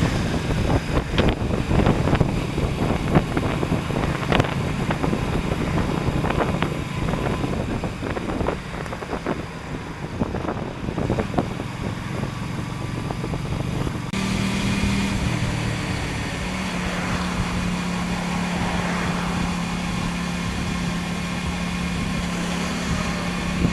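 Motorcycle riding sound picked up by an action camera's built-in microphone: heavy, gusty wind buffeting over the engine. About fourteen seconds in it changes abruptly to a steadier engine hum with much less wind noise, the microphone now shielded by a fur windcover.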